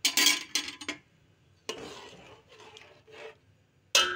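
A metal spoon scraping and stirring soaked rice and water in a metal pot, with a sharp ringing clink of the spoon against the pot near the end.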